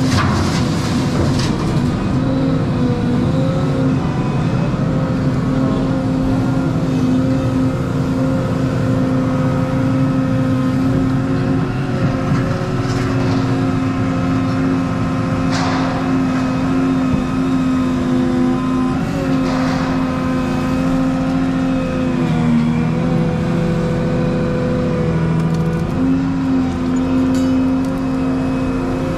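Volvo 235EL excavator's diesel engine running steadily at working speed, heard from inside the cab. Its pitch dips briefly about two-thirds of the way through, and there are a few short hisses.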